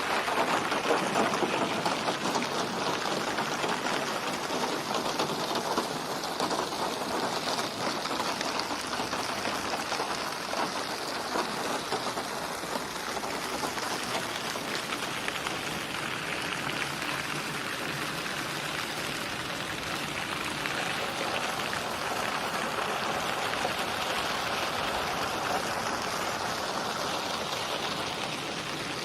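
Steady heavy rain falling, a dense patter of drops on surfaces, slightly louder in the first few seconds.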